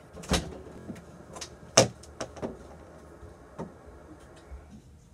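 Scattered knocks and bumps of someone moving about the room, about half a dozen, the loudest a little under two seconds in, growing quieter toward the end.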